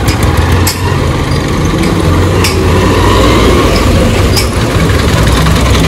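Motorcycle engine running as the bike rides along, with a steady low hum and a few sharp clicks.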